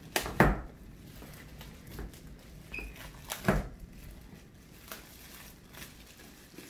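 Clear plastic wrapping being pulled off a gift box by hand, crinkling and tearing, with two louder crackles about half a second and three and a half seconds in.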